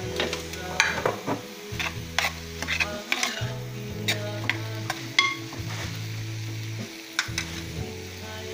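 A utensil stirring diced carrots, onion and peppers in a pan as they sizzle, with frequent sharp scrapes and clinks against the metal.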